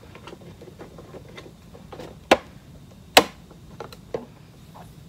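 Handling noise: scattered soft clicks and taps as hands work on the hair and handle the camera close to the microphone, with two sharp, louder clicks a little past halfway.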